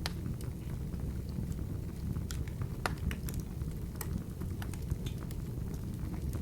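Open wood fire burning in a fireplace: a steady low rush of flames with irregular sharp crackles and pops from the burning wood.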